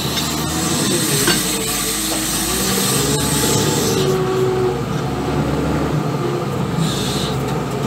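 New Holland W130 wheel loader's diesel engine running steadily under drive, heard from inside the operator's cab, with a steady hiss over it.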